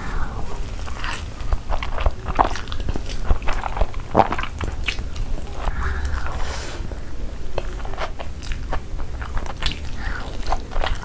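Close-miked eating: crunchy bites into breadcrumb-coated cheese corn dogs and chewing, heard as many irregular crackles and clicks over a low steady hum.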